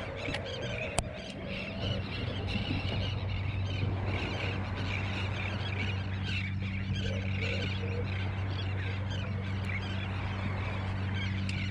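Birds calling steadily in many small, irregular calls over a steady low hum, with a single sharp click about a second in.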